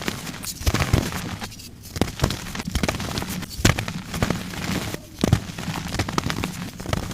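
Gym chalk being crushed and crumbled: a run of irregular soft crunches and crackles with sharper snaps every so often.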